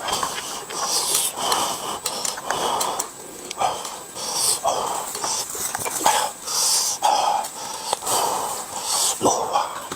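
Noisy eating, with repeated wheezy, snuffling breaths coming in irregular bursts.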